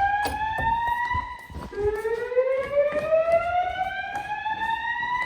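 Notifier voice-evacuation fire alarm sounding its slow whoop tone through System Sensor L-Series speaker/strobes: a tone with overtones rising slowly in pitch. One whoop ends about a second in, and after a short break a second whoop climbs for about three seconds. This is the evacuation signal that alternates with the spoken evacuation message.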